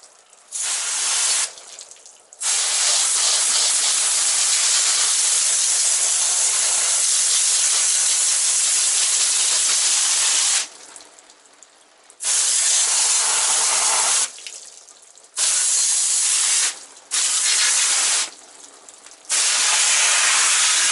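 Garden hose spray nozzle jetting water into a car's engine bay to rinse off soaked-in degreaser, a steady loud hiss. The trigger is squeezed and released: a short burst, one long spray of about eight seconds, then four shorter bursts of one to two seconds each.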